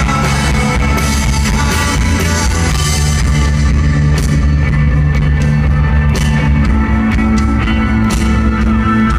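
Live rock band playing: electric guitars and bass over a drum kit, with cymbal strikes that come more often from about halfway through.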